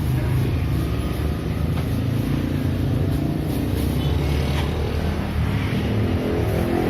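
A motor vehicle's engine running steadily, with a low, even sound.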